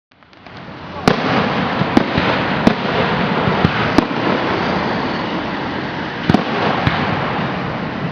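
Fireworks display: sharp bangs of bursting shells at irregular intervals, about seven in all, over a continuous dense wash of noise. The sound fades up over the first second.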